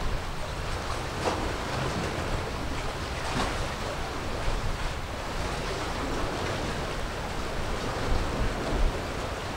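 Sea water washing and wind buffeting the microphone: a steady rush with a fluttering low rumble.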